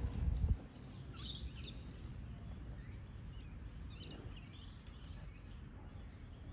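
Inmotion V12 electric unicycle rolling over grass right past a ground-level camera, a low rumble that fades out about half a second in as it rides away. After that, a quiet outdoor background with a few faint bird chirps.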